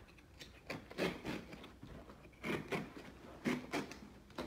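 Carpet being cut into strips with a hand-held seam cutter: a series of short, scratchy crunching strokes in uneven bunches as the blade slices through the carpet.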